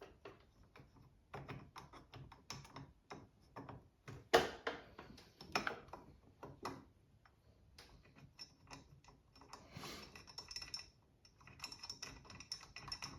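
Irregular clicks and clatter of small metal parts and tools being handled, with a sharp knock about four seconds in and brief metallic scraping twice near the end.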